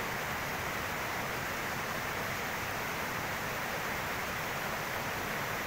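Steady rush of flowing water, an even hiss with no rhythm or breaks.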